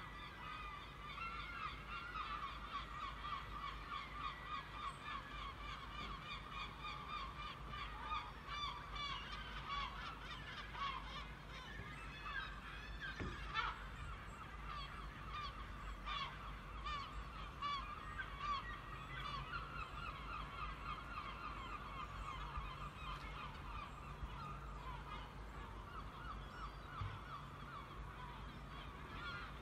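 A flock of geese honking, many short overlapping calls in a continuous chorus.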